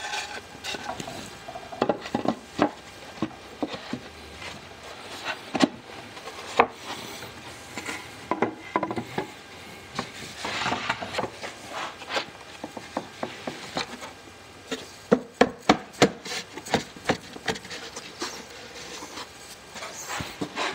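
Wooden drawer panels being handled and fitted together on a workbench: scattered knocks and taps of board against board and on the bench, with some scraping and rubbing, and a quick run of knocks about fifteen seconds in.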